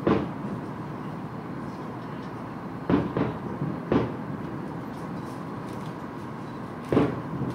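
Distant aerial firework shells bursting: four booms, one at the start, two a second apart in the middle and one near the end, over a steady low rumble.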